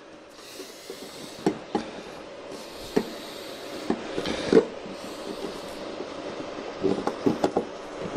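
Irregular clicks, taps and light knocks from hand work on a pickup's headlight assembly, as screws and clips are worked loose. The loudest knocks come about four and a half seconds in, with another quick run of clicks around seven seconds.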